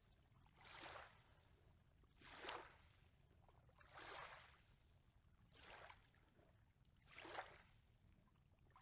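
Small lake waves lapping onto a sandy shore, faint, each wash swelling and fading about every one and a half seconds.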